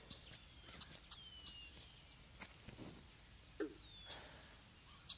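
Woodland ambience: a bird giving a few short whistles that fall in pitch, over a steady, evenly repeating high insect chirping.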